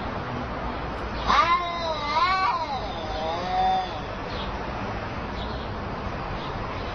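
Cats yowling at each other in a territorial standoff: three drawn-out, wavering yowls that rise and fall in pitch, starting about a second in, then only faint calls.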